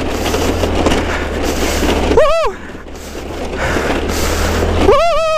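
A Chinese scooter's small engine running under heavy wind noise on the helmet-camera microphone as it rides through snow. Twice a short, high-pitched vocal cry rises and falls: about two seconds in, and a wavering one near the end.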